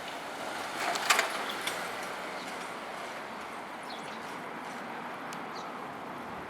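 Steady road-traffic noise at a railway level crossing under a highway viaduct, with a short clatter about a second in. No crossing bells are sounding.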